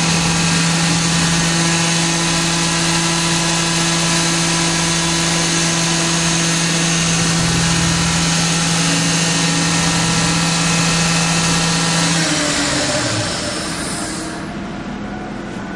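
Fadal 4020 vertical machining center's spindle running at its full 10,000 RPM with a steady whine. Near the end it slows down: the pitch falls away and the sound drops off.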